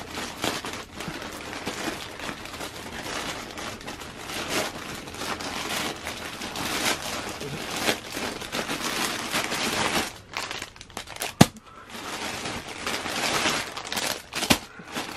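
Thin plastic mailer bag and clear plastic packaging crinkling and rustling as they are handled and pulled open, with one sharp snap about eleven seconds in.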